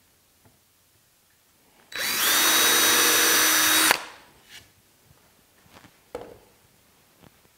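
Cordless drill spinning up and running steadily for about two seconds as it bores a countersink pilot hole in wood, then stopping. A short knock follows a couple of seconds later.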